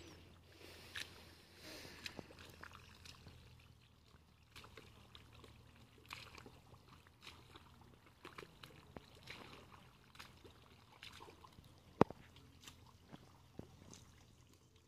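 Hands squelching and splashing through shallow muddy water while groping for fish, with scattered small splashes and drips and one sharp click about twelve seconds in.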